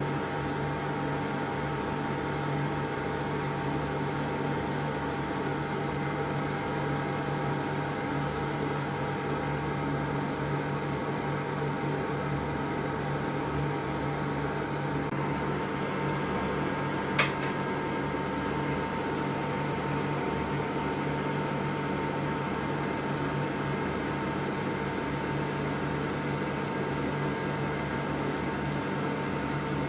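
Steady white noise with a low machine-like hum running under it, even and unchanging. A single sharp click sounds about 17 seconds in.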